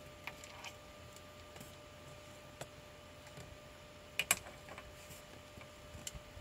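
Scattered light clicks and taps, about half a dozen, the loudest a quick double knock about four seconds in, over a faint steady hum.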